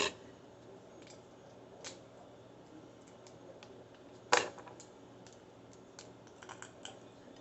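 Scattered light clicks and knocks of a cup and kitchen utensils being handled, with one sharper knock about four seconds in and a few small ticks near the end.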